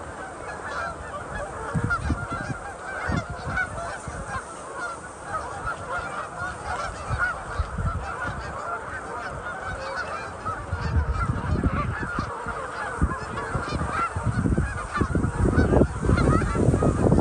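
A large flock of geese honking continuously, many overlapping calls at once. Low rumbles come and go underneath, strongest in the second half.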